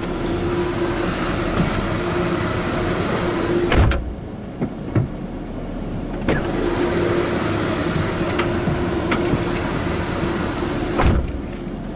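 The truck's power-folding side mirrors folding in one after the other. Each makes a steady motor whine of about four seconds that ends in a clunk as the mirror stops, once about four seconds in and again near the end.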